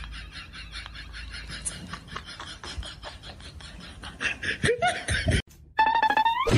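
People laughing in quick, pulsing bursts. After a short break, a high cry rises in pitch near the end, a kitten mewing.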